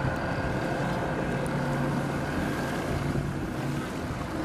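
Boat engine running steadily with a low hum, with wind on the microphone.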